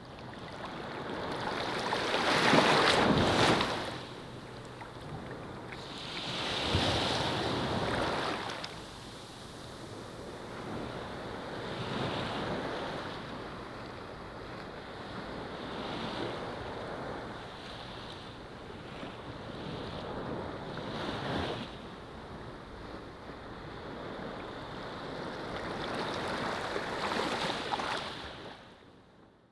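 Small waves washing up onto a sandy shore, each surge of surf swelling and falling away every four to five seconds, the loudest about three seconds in. The sound fades out near the end.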